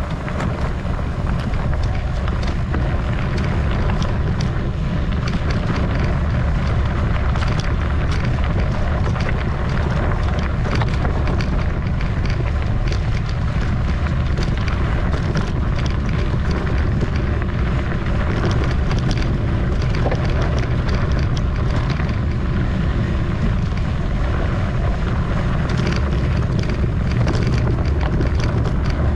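Mountain bike descending a rough trail: steady wind buffeting the microphone, with frequent clicks and rattles from the bike jolting over the ground.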